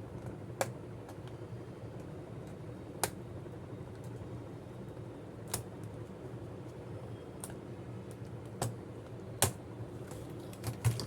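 Scattered sharp plastic clicks, a few seconds apart, as the keyboard of a Dell Inspiron 15 laptop is pried up out of its retaining clips, over a steady low hum. The loudest clicks come near the end.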